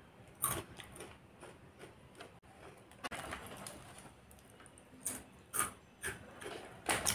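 Crunching as small, crisp cumin biscuits are chewed: a few short, separate crunches at irregular intervals. A plastic snack packet crinkles as it is handled in the second half.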